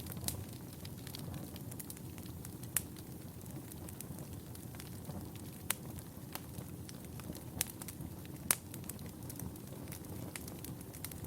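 Wood fire burning in a fireplace: a steady low rumble of flames with scattered sharp pops and crackles, several louder pops standing out.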